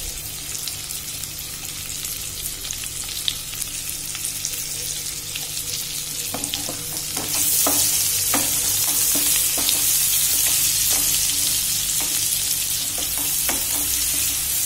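Sliced onions sizzling in hot oil and ghee in a kadhai, stirred with a wooden spoon that knocks against the pan now and then. The sizzle gets louder about halfway through.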